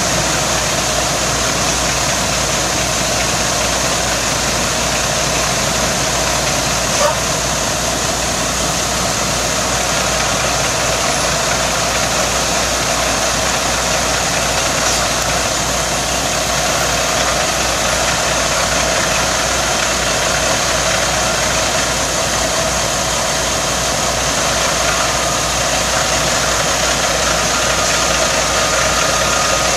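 An engine running steadily at a constant speed, with a single short click about seven seconds in.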